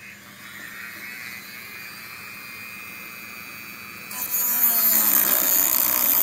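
Corded rotary tool running at high speed with a steady whine. About four seconds in it bites into the handle it is trimming, and the sound becomes much louder and harsher, a grinding cut.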